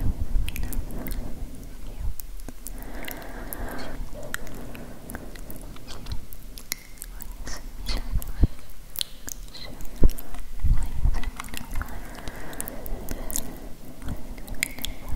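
Close-miked ASMR mouth sounds into a handheld recorder: irregular wet clicks and lip smacks, with a couple of heavier low thumps about ten to eleven seconds in.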